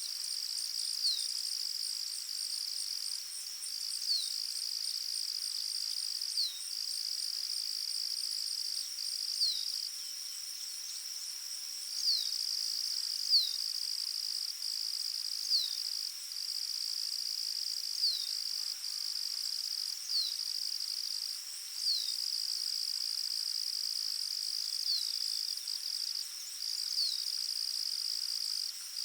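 A steady, high insect trill that breaks off for a moment now and then, with a bird repeating a short, high, falling note about every two seconds.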